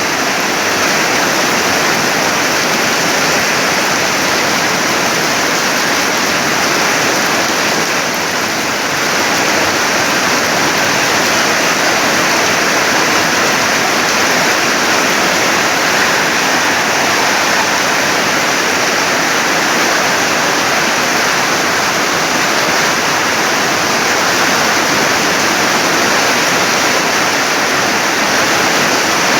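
Heavy storm rain pouring down, a steady dense rush of water.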